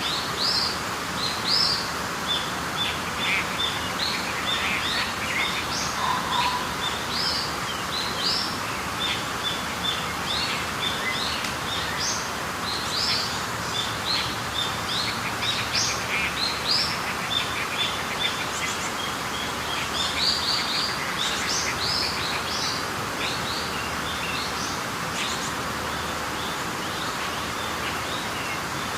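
Many small birds chirping and twittering in quick, overlapping short calls over a steady background hiss: a birdsong nature ambience.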